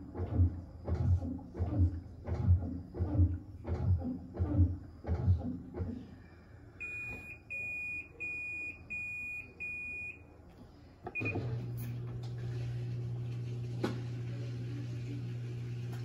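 Panasonic NA-F140B6 top-loading washing machine: a run of rhythmic low thuds about every 0.7 s, then five high electronic beeps from the control panel, and about eleven seconds in a steady low motor hum starts.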